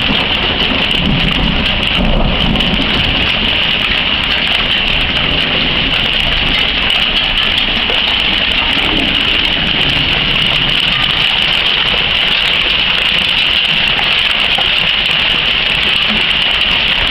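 Pea-size hail pelting down in a thunderstorm, a loud, steady hiss.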